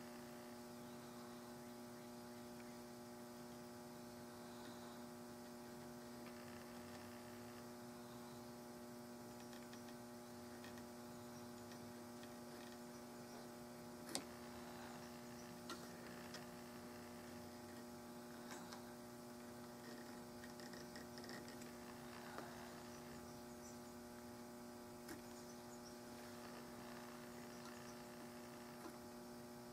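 Steady electrical hum with faint scratching and occasional light ticks from a hand checkering tool cutting lines into a walnut gun stock; one sharper click about halfway through.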